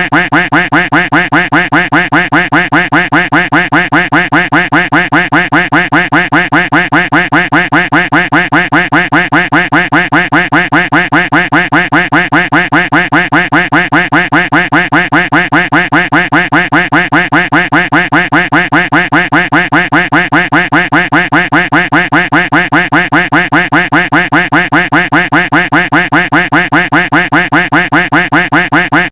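Duck quack sound effect looped without pause, several quacks a second in an even, unbroken rhythm.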